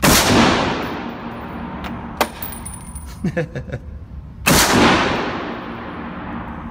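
Two single shots from an AR-style semi-automatic rifle, about four and a half seconds apart, each with a long echoing tail. A sharp click falls between them.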